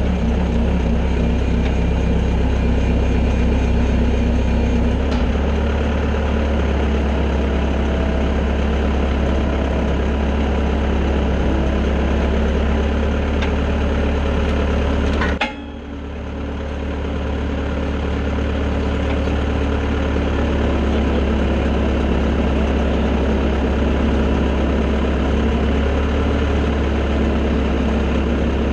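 Bobcat skid-steer loader's engine running steadily at idle, heard close up with a deep, constant hum. About halfway through there is a brief click and a short drop in level before it steadies again.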